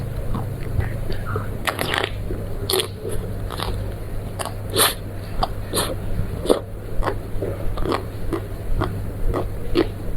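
Close-miked eating sounds: biting and chewing snack food, a run of short crunches and wet clicks about one or two a second, over a steady low hum.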